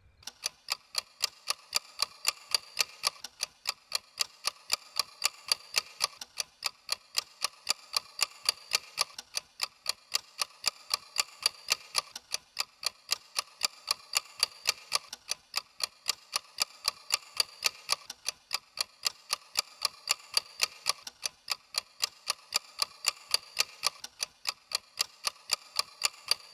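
Alarm clock ticking at a fast, even pace.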